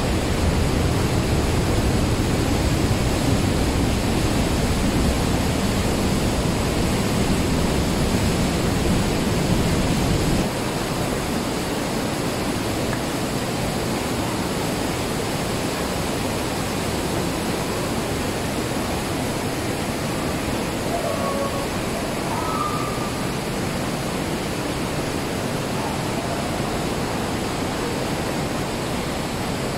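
Weissbach mountain stream rushing through a narrow limestone gorge, a steady loud noise of churning water. About ten seconds in it drops abruptly: the deep rumble falls away and it goes on lighter and a little quieter.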